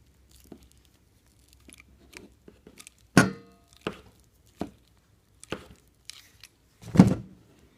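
A handful of sharp clicks and knocks about a second apart, the loudest about three seconds in and another near the end: a compression tool pressing an F-connector fitting onto RG6 quad shield coax.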